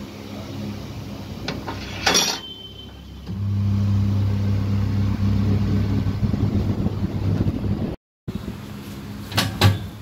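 Electric tyre-changer machine's turntable motor running with a loud, steady hum for several seconds while a motorcycle tyre is worked onto the rim. A sharp metal clank comes about two seconds in, and another near the end.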